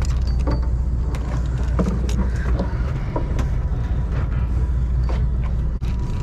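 Steady low drone of the party boat's engine running at idle, with scattered small clicks and knocks from fishing line and tackle being handled close to the microphone.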